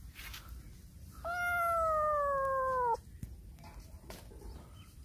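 Black kitten giving one long, loud meow that slides slowly down in pitch and breaks off sharply, starting about a second in and lasting nearly two seconds.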